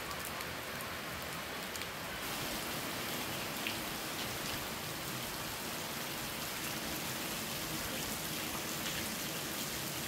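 Steady rainfall, a continuous hiss of rain with the odd sharper drip standing out.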